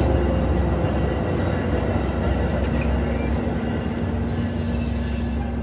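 Metra bilevel commuter cars rolling past at close range: a steady rumble of steel wheels on the rails. A faint steady hum joins about halfway through.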